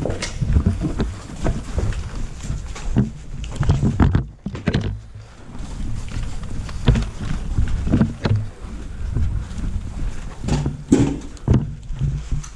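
Rustling and handling noise with irregular knocks, clicks and footfalls from a player moving through a building, picked up close by a body-worn action camera.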